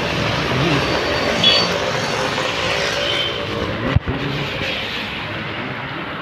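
Steady hiss of heavy rain mixed with vehicle noise on wet roads, with a sharp click about four seconds in.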